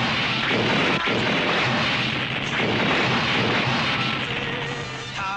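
A barrage of explosions and crackling blasts, one after another with no break, easing a little near the end as music comes in.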